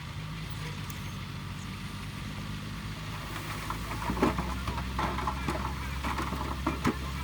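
Diesel engine of heavy earthmoving machinery running steadily. Its note deepens and grows stronger partway through, followed by scattered sharp clanks and knocks.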